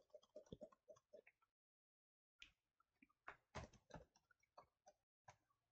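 Near silence with faint, scattered key clicks from a computer keyboard being typed on.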